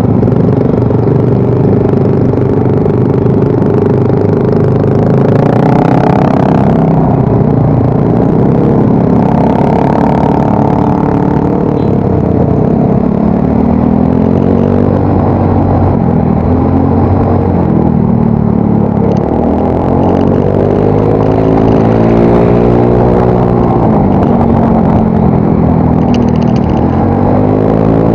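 Yamaha Mio Soul GT scooter's single-cylinder four-stroke engine through its new exhaust while being ridden, the pitch rising and falling again and again as the throttle is opened and eased, over a steady low rumble.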